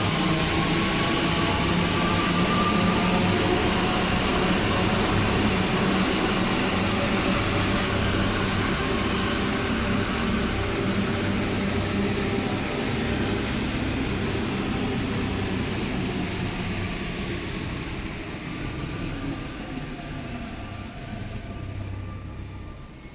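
Santiago Metro NS-93 rubber-tyred train running through the station, its motors whining, then fading away over the last several seconds as it moves off, with a thin high squeal in the later part.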